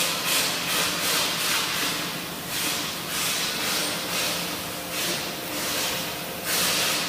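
Wood-shaving baling machine running: a steady machine hum under a rushing hiss that swells and fades about three times a second.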